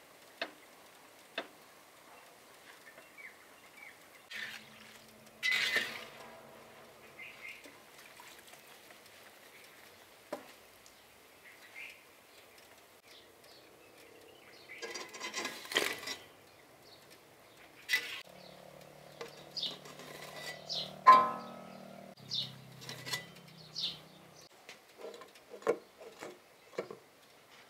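Scattered clinks and knocks of a metal slotted skimmer against a steel kadhai and a steel syrup tin as fried gulab jamun are scooped out and dropped into sugar syrup. The loudest knock comes about two-thirds of the way in.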